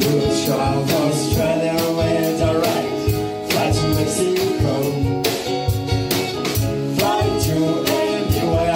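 Acoustic pop band playing live: a woman and a man singing together over strummed acoustic guitar and ukulele, with a steady strummed rhythm.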